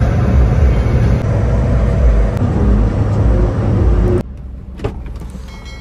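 Interior noise of a car cruising at motorway speed: a loud, steady low road-and-engine rumble with wind hiss. About four seconds in it drops suddenly to a much quieter cabin hum.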